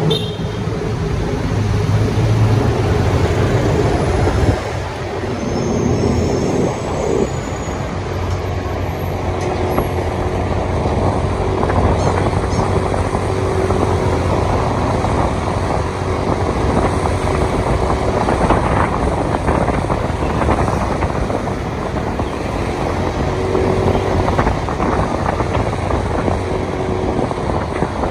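Motorbike engine running steadily while riding, with the surrounding city traffic heard around it.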